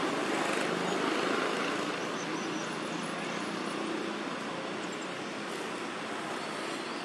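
Steady outdoor background noise: a continuous, even rumble of distant road traffic with no distinct events.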